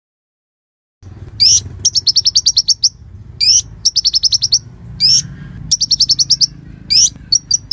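Konin songbird singing. After a second of silence, loud high-pitched phrases begin: each opens with a rising swept note and runs into a fast string of repeated chirps, about four phrases in all.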